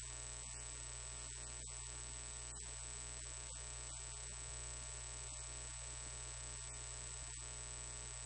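Steady electrical mains hum with static hiss and a constant high-pitched whine on the recording; no voice comes through.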